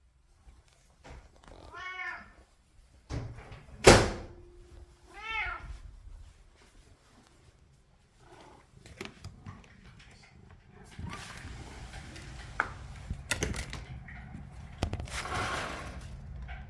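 A domestic cat meowing for food: two short meows a few seconds apart, with a sharp knock between them. Rustling and several knocks fill the second half.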